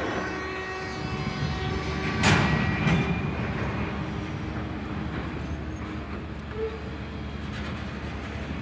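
Freight train cars rolling past: a steady rumble of steel wheels on rail, with faint high squealing tones. Two sharp clanks come a little over two seconds in, about half a second apart.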